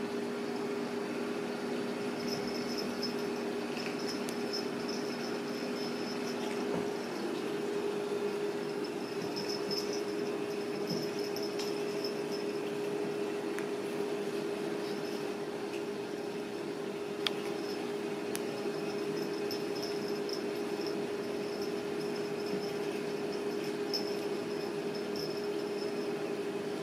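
Steady low mechanical hum, such as a fan or air conditioner running in a small room, with faint high-pitched squeaks coming and going and a single sharp tick about two-thirds of the way through.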